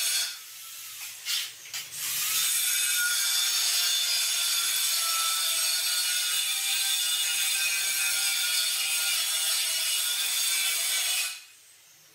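Notched trowel scraping and combing cement tile adhesive into ridges on a floor: a steady rasping scrape that starts after a short pause near the beginning and stops about eleven seconds in.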